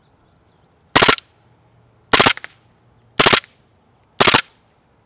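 KWA M93R gas blowback airsoft pistol firing in burst mode: four short bursts of rapid, sharp shots, about a second apart.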